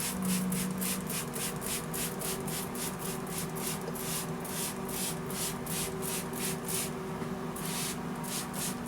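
Rhythmic rubbing noise, about four strokes a second, over a steady low hum, breaking off briefly near the end.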